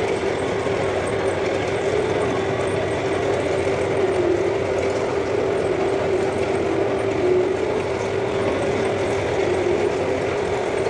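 A steady, continuous machine-like hum with a slightly wavering drone and a faint high whine over it, unbroken throughout.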